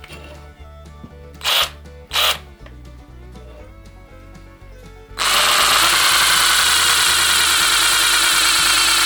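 Background music with two short bursts of noise, then about five seconds in a cordless power driver starts and runs steadily and loudly at full speed.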